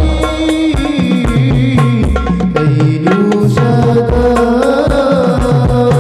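Instrumental passage of a sholawat (Arabic devotional song): a held, gliding melody over a steady beat of hand drums.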